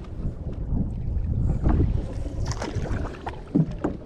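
Canoe paddling: paddle splashes in the water and a few sharp knocks of the paddle on the hull, over a steady low wind rumble on the microphone.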